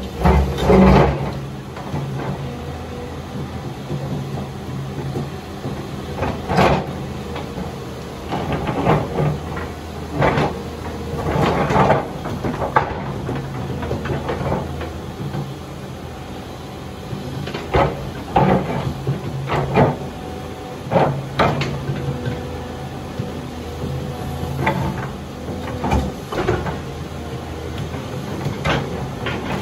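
Volvo crawler excavator's diesel engine running steadily, with irregular clunks and scrapes, a dozen or so, as its bucket knocks and shifts large rocks into place.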